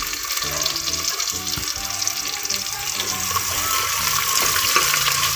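Chopped onion, tomato, ginger and green chillies sizzling and crackling in hot oil in a clay pot, a steady hiss with small pops, over background music.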